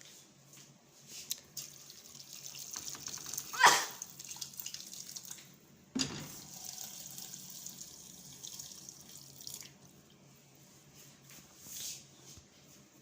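Water running from a kitchen tap, loudest about three and a half seconds in, followed by a sharp knock about six seconds in and quieter trickling.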